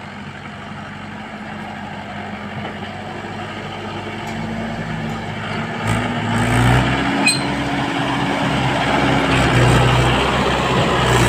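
Mahindra tractor's diesel engine working under load as it pulls a loaded trailer free of soft ground, getting louder as it comes closer. The engine note rises about six seconds in, with a brief sharp click soon after.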